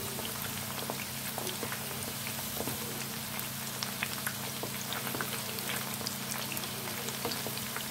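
Batter-coated chicken lollipops deep-frying in hot oil at medium heat: a steady sizzle with scattered crackling pops.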